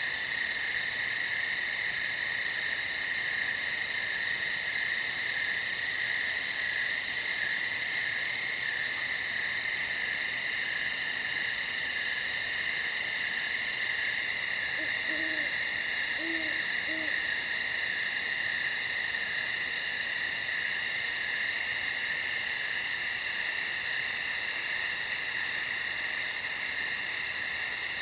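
A steady night-time insect chorus, continuous high-pitched chirring, with an owl hooting three short times about halfway through.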